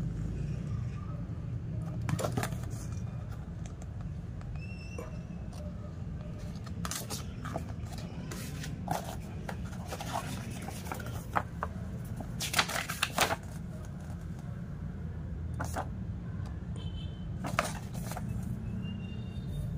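Paper and cardboard being handled: a glossy flyer and a manual rustling and scraping as they are lifted and leafed through in a cardboard box, with scattered light taps and a louder cluster of rustles about two-thirds of the way through. A steady low hum runs underneath.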